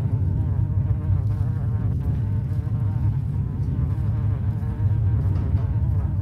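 A fly buzzing loudly and continuously, its pitch wavering slightly.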